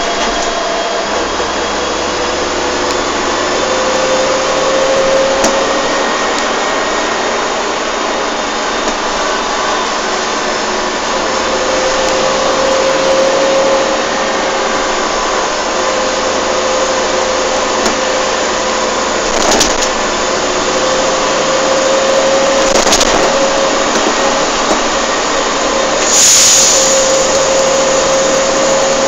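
Volvo Olympian double-decker bus on the move, heard from inside the passenger deck: steady engine and road noise with a whine that climbs slowly in pitch several times. A few knocks and rattles, and a short burst of hiss near the end.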